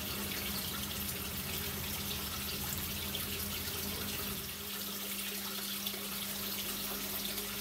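Water running steadily, like a tap or hose filling a tub, over a steady low hum; a low rumble underneath stops a little over halfway through.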